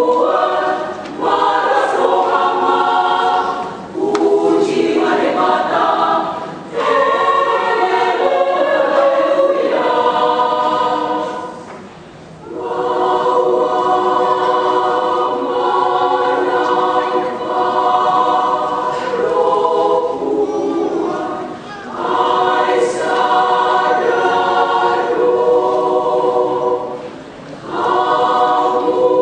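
Women's choir singing in parts, in long phrases with short pauses between them.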